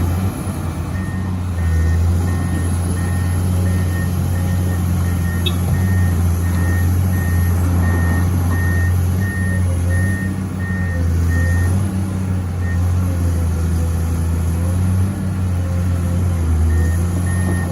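Heavy diesel engines running hard under load as a stuck truck is pulled in deep mud, with a vehicle's reversing alarm beeping steadily over them; the beeping stops for a few seconds near the end, then resumes.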